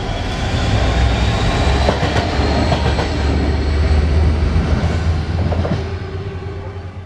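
Class 66 diesel-electric locomotive passing at speed, its two-stroke V12 diesel giving a deep rumble while the wheels clatter over rail joints. The sound swells as it comes by and fades near the end.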